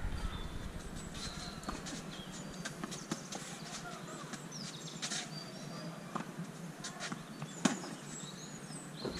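Tennis rally on a clay court: racket strings striking the ball as sharp pops every second or two, the loudest a little before eight seconds in, with birds chirping faintly in the background.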